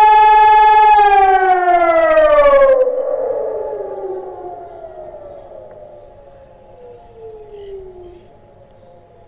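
Hörmann ECN 3000 electronic siren ending its steady two-minute remembrance tone: the loud, even tone holds for about a second, then slides down in pitch and cuts off about three seconds in. Fainter falling siren tones trail off and fade after it.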